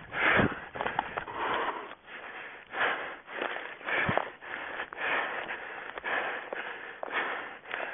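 A runner's hard breathing, a noisy surge about once a second, mixed with the rustle of feet pushing through forest undergrowth and an occasional thud of a footfall.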